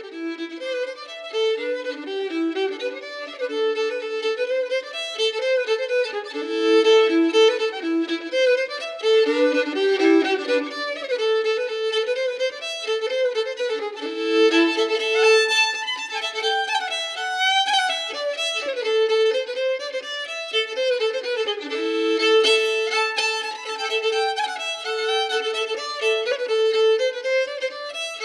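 Background music: a fiddle tune, with repeated held notes under quicker runs of notes.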